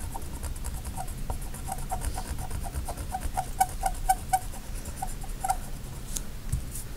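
The rubber friction-eraser end of an erasable gel pen rubbed back and forth on paper to wipe out pen ink, squeaking in a run of short chirps, a few a second, over a faint scratchy rubbing.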